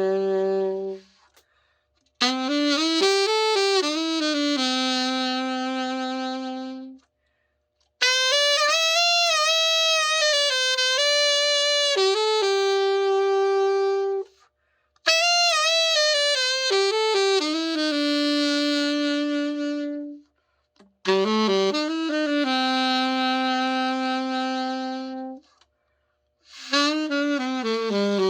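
Yanagisawa A-902 alto saxophone, freshly overhauled, playing a slow unaccompanied melody in long held phrases with vibrato, with short breaths between phrases.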